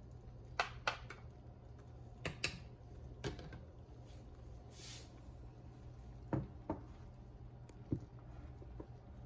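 Kitchenware being handled: scattered light clicks and knocks, several in quick pairs, with a brief hiss about five seconds in, over a low steady hum.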